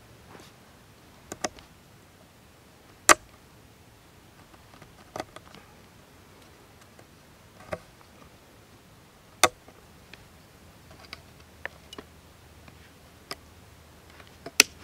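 Knife blade carving a notch into a green wooden pole: separate sharp clicks and knocks as the blade bites and cuts into the wood, one every second or two. The loudest come about three seconds in, about nine and a half seconds in, and near the end.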